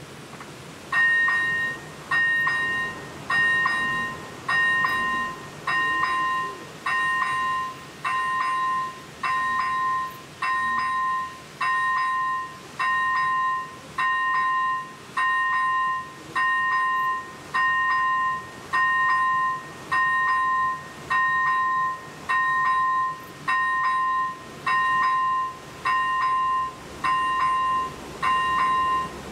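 Electronic warning bell of a Czech AŽD 97 level-crossing signal, starting about a second in and ringing about once a second, each stroke a bright two-tone ding that fades quickly. It is the crossing's warning that a train is approaching.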